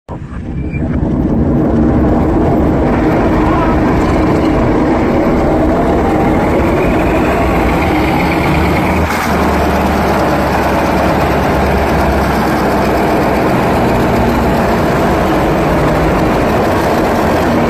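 Diesel engine of a small sand dredger running loud and steady close up. It drives a gearbox and a centrifugal sand pump.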